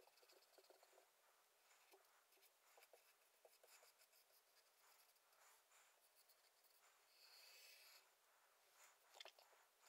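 Faint squeaks, ticks and scratches of a marker pen writing on a small whiteboard, with a longer steady scratch about three-quarters of the way through and a sharp tap near the end.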